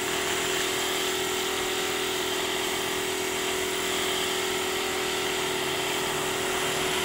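Gravity-feed air spray gun hissing steadily as it sprays paint, with the steady hum of the air compressor that feeds it.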